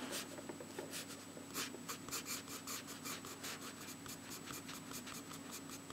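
Charcoal pencil shading on sketchbook paper: faint, quick scratching strokes, about five a second.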